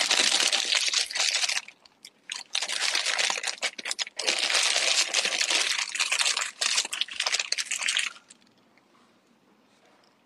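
Food wrapper or packaging crinkling as it is handled and opened, in two long stretches of crackling that stop about eight seconds in.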